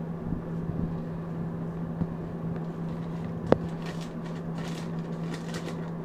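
Thin Bible pages rustling and crinkling as a monkey paws at them and lifts a page, over a steady low hum. A single sharp click sounds about three and a half seconds in.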